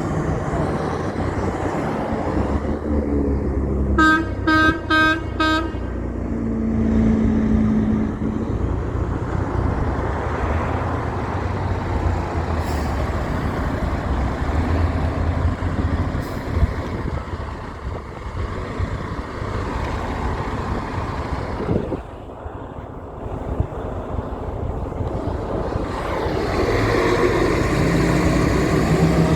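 Heavy trucks passing with engines running, and about four seconds in a truck's horn sounds a quick run of short toots.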